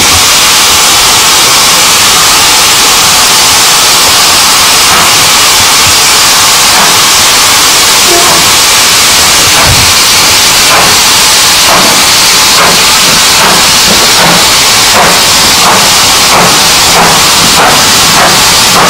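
Steam locomotive pulling away, with a loud, steady hiss of escaping steam throughout. About ten seconds in its exhaust beats start and quicken from about one a second to nearly two a second as the train gathers speed.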